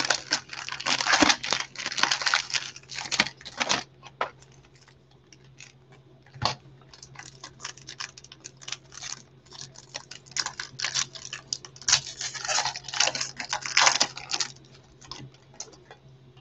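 Foil wrapper of a Topps Chrome baseball card pack crinkling and tearing as it is opened. It goes quiet about four seconds in, then more crinkly rustling follows as the cards are pulled out and handled.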